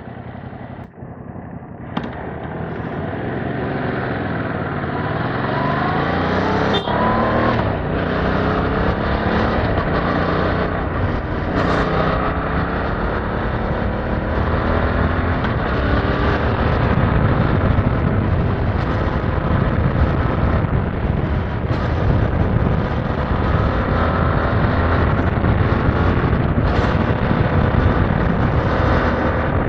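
Yamaha MT-07's 689 cc parallel-twin engine on its stock exhaust, pulling away and revving up through several upshifts, then running steadily at road speed. Wind rushes over the microphone in the second half.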